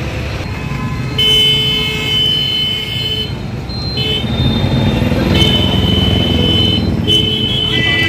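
Busy road traffic: engines running in a steady rumble while vehicle horns honk again and again, some held for a second or two.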